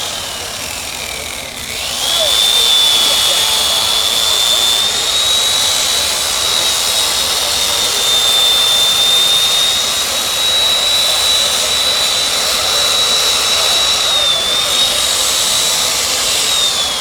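High-speed power tool cutting ice, its motor whining steadily at a high pitch. The whine drops as the tool slows near the start, comes back up to speed about two seconds in, and slows again at the end.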